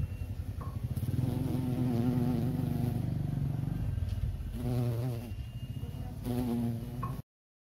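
Bee buzzing in flight: a wavering drone that swells and dips a few times, then cuts off abruptly near the end.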